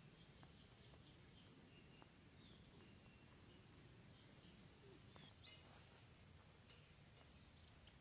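Near silence: faint outdoor ambience with a thin steady high tone and a few faint chirps, one a little after five seconds in.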